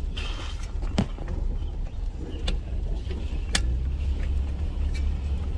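Jeep Cherokee Trailhawk heard from inside the cabin, crawling over a rough, rutted dirt road: a steady low rumble from the engine and tyres, with a few sharp knocks and rattles as the suspension works over the bumps.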